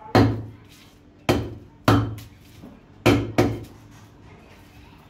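Heavy chopping strikes on a wooden block, as a cleaver cutting meat in a restaurant kitchen: five hard blows at uneven intervals, each ringing briefly.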